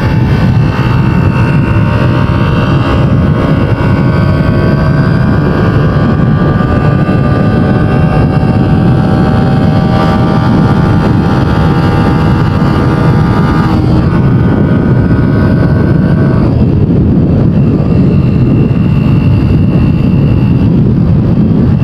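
Honda TMX 125 Alpha's single-cylinder four-stroke engine running at road speed, heard from the rider's seat under a heavy, steady low rumble. Its tone climbs slowly, shifts abruptly about 14 seconds in, and drops back into the rumble a couple of seconds later.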